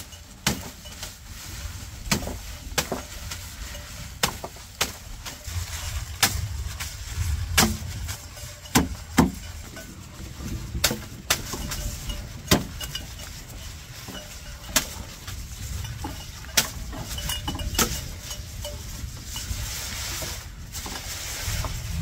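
A series of sharp knocks or clicks at irregular intervals, about one every second or so, over a steady low rumble.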